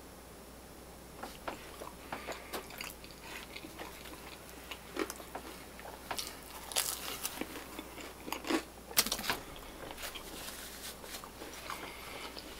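Close-miked mouth sounds of a person biting and chewing pizza: scattered crunches and wet clicks, loudest in the middle.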